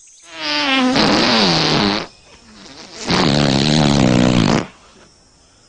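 Two long fart noises about a second apart, each a buzzing blast lasting well over a second with a pitch that wavers, dipping and rising.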